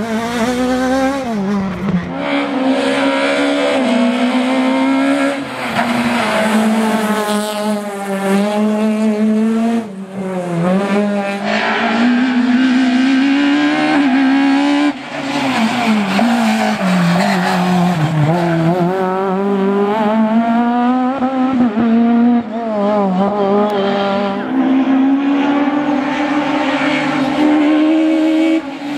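Peugeot 306 Maxi rally car's naturally aspirated four-cylinder engine revving hard on a stage, its pitch climbing and dropping over and over as the car accelerates, shifts and lifts. There are short drops in loudness about ten and fifteen seconds in.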